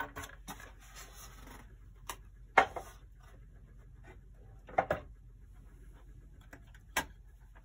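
Handling noises from a pendulum clock being taken apart on the bench: a short rubbing rustle, then a string of sharp knocks and clunks. The loudest comes about two and a half seconds in, two come close together around five seconds, and a last one comes near the end.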